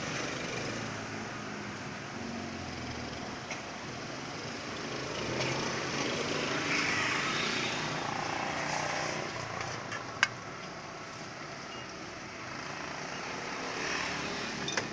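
Steady outdoor motor noise, typical of traffic passing a roadside food stall, swelling and fading. A single sharp clack about ten seconds in.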